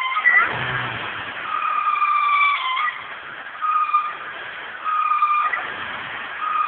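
Warm 1995 Honda Civic D16Z6 engine with a Jackson Racing supercharger making a strange high-pitched whistle that comes and goes in spells of about a second, stepping in pitch and cutting off sharply. The noise was traced to the crankcase breather hose being wrongly connected after the throttle body.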